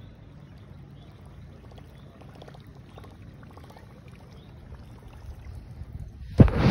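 Whopper Plopper topwater lure being reeled in across the surface, faint clicks over a low rumble. About six and a half seconds in comes a sudden loud splash as a fish strikes the lure near the bank.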